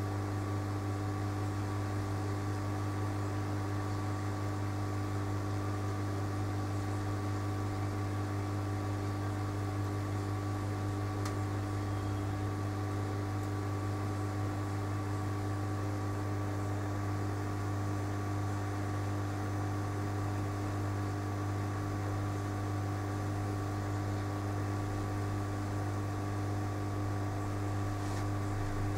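A steady machine hum, low and unchanging, with a few steady tones over it and a faint hiss, and one faint click about eleven seconds in.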